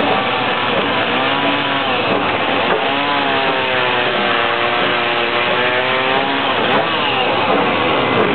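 Sawmill running steadily. A hum in it sags in pitch for about three seconds in the middle, then comes back up, as the mill takes a load.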